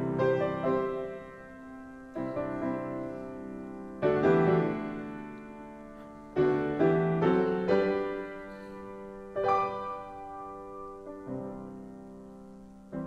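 Piano playing a slow instrumental interlude between verses of a congregational song: about nine chords struck one after another, each left to ring and fade before the next.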